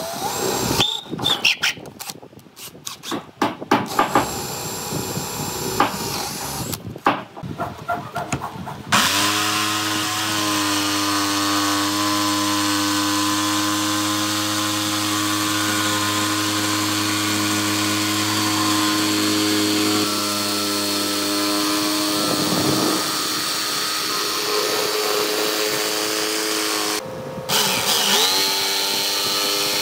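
Electric drill boring a starter hole into a pine board, running in short, broken bursts with quick spin-ups. About a third of the way in, a Makita jigsaw starts and runs steadily, cutting a curve through the pine; near the end it stops briefly and spins back up.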